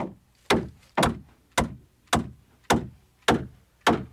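Steady hammer blows on the wooden planking of a hand-built boat hull, eight strikes at about two a second, each ringing briefly in the hull.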